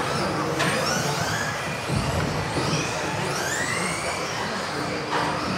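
Electric 1/10 off-road RC buggies with brushless motors whining up and down in pitch as they accelerate and brake around the indoor track, with a thump about two seconds in.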